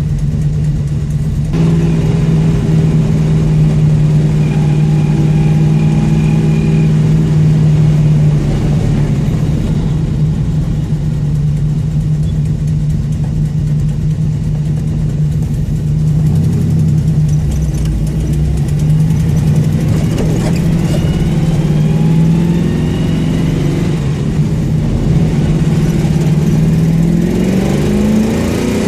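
Car engine with an exhaust leak running at a steady speed, then rising in pitch as it revs up near the end.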